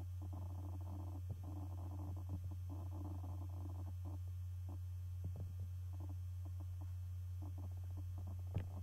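Steady low hum with faint scattered clicks and rustling over it.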